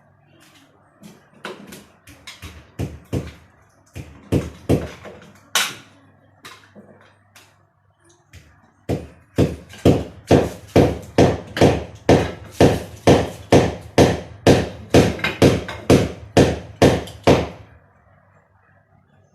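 Hammer strikes, scattered and uneven at first, then a steady run of about two to three blows a second that stops a couple of seconds before the end, over a faint low hum.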